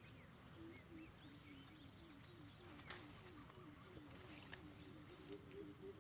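Faint run of short, low hooting notes repeated about four to five times a second, like a bird's call, with a few faint high chirps and two sharp clicks about halfway through.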